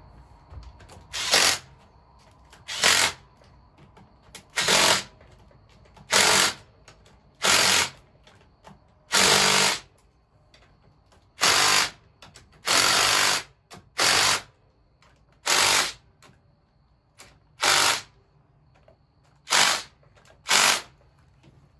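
Cordless impact driver run in about a dozen short bursts, each under a second and a second or two apart, snugging bolts back down at the top of the motorcycle's fork.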